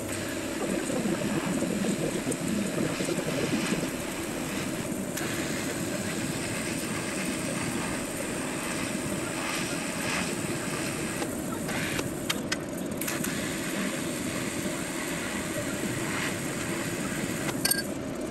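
TIG welding a fusion pass around a steering column tube: a steady low machine hum from the welding setup, with the faint hiss of the arc above it.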